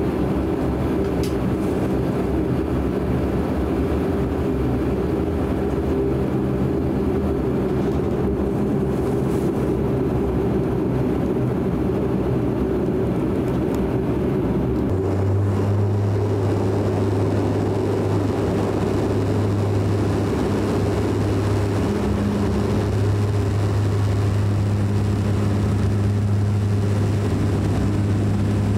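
De Havilland Canada Dash 8 Q400 turboprop engines and propellers droning, heard from inside the cabin. About halfway through, a strong steady propeller hum sets in and the sound grows a little louder as power comes up for the takeoff roll.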